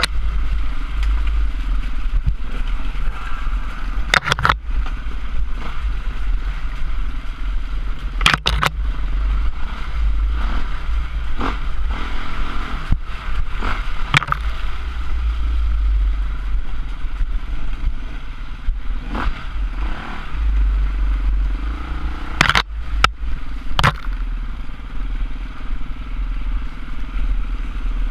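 Off-road trail motorcycle engine running steadily under a heavy low rumble as the bike rides a muddy, rutted lane. Several sharp knocks and clatters come from the bike jolting over the ruts.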